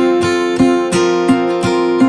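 Intro music: acoustic guitar strumming chords in a steady, upbeat rhythm, about three strums a second.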